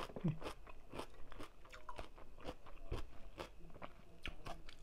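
Close-up chewing and crunching of a mouthful of tam sua, spicy Thai papaya salad with rice noodles and raw shrimp: a steady run of crisp crunches, several a second, with a short low hum from the eater just after the start.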